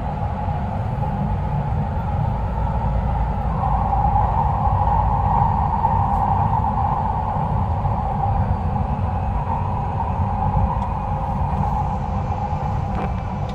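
Subway train running through a tunnel, heard from inside the car: a steady low rumble with a droning hum that grows louder for several seconds in the middle, then eases.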